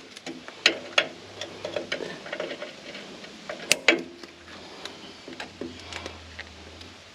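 Irregular clicks and knocks of hand tools and hose fittings being handled, a few sharper ones standing out.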